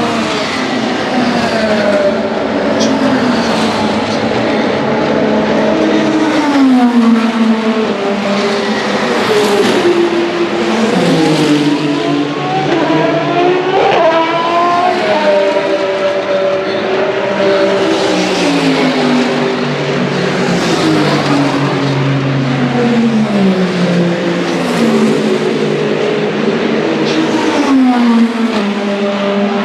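Hypercar endurance race cars on track, engines shifting down in quick stepped drops of pitch as they brake, several times over. About midway through, one engine revs sharply upward as a car accelerates away.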